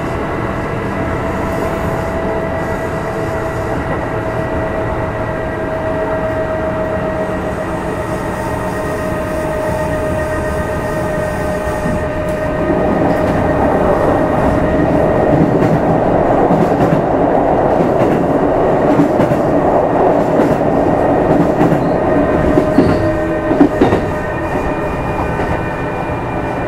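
Running noise aboard a Kintetsu 2610 series motor car. The traction motor and gear whine is steady and drifts slowly lower in pitch. About halfway in, a louder rumble from the wheels and rails comes up, and a couple of sharp rail-joint clacks sound near the end.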